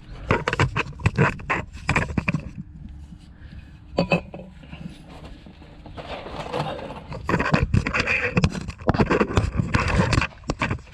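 Hand tools clicking, knocking and scraping on metal under a car as a wrench is worked on the exhaust pipe's loose rubber mounts. There is a run of sharp clicks at the start, a quieter spell, then a longer stretch of busy clicking and scraping.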